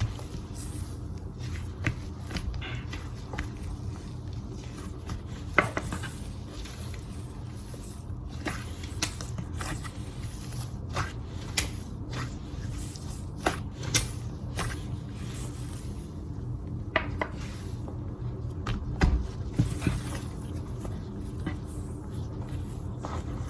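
Hands squeezing and stretching a very soft fake-snow slime, giving scattered small clicks and squishy pops over a steady low hum. Being soft, the slime makes few of the crunchy noises.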